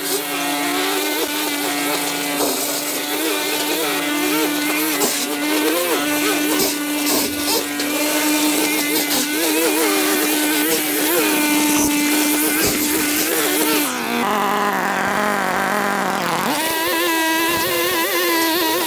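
Small petrol engine of lawn-care equipment running steadily at high speed. About two-thirds of the way through it eases off to a lower pitch for a couple of seconds, then speeds back up to its working pitch.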